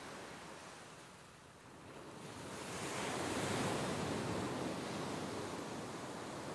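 Ocean surf on a beach: after a lull, a wave swells in about two seconds in, peaks and slowly washes back out.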